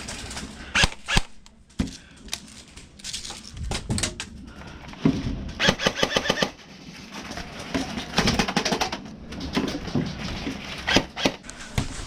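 Airsoft guns firing, with two rapid full-auto bursts of clicks lasting about a second each, near the middle and about two-thirds through, and scattered single knocks and clicks between them.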